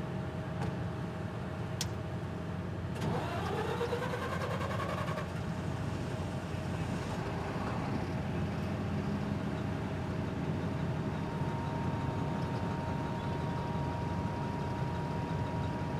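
An engine running steadily with a low rumble. About three seconds in, a brief rising whine; from about eleven seconds on, a faint steady tone.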